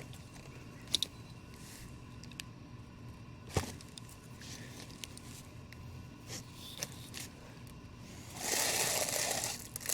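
Statue packaging being handled: a few small clicks and taps, then a burst of plastic crinkling near the end.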